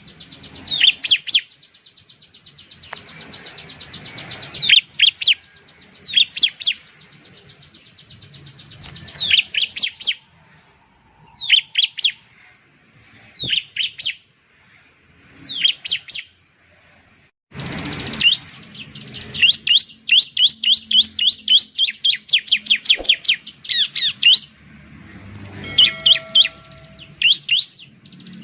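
Bar-winged prinia (ciblek) singing: loud, high, sharply falling notes in clusters, with stretches of a rapid rattling buzz that swells in loudness. It goes sparser in the middle, with single notes a couple of seconds apart. Then, about two-thirds of the way through, it breaks into a fast run of about three or four repeated notes a second.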